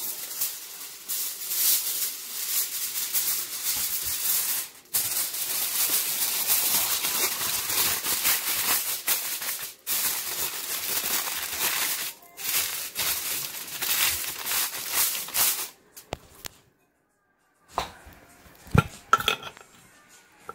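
Aluminium foil crinkling and rustling as it is spread and pressed over the top of a baking dish, in long stretches broken by brief pauses. It stops near the end, and a few sharp knocks follow.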